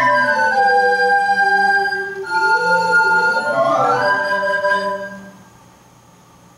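A recorder ensemble, with large square bass recorders among the sopranos and altos, playing the closing bars in several parts: held chords, a quick rising run near the middle, then a final held chord that stops about five seconds in.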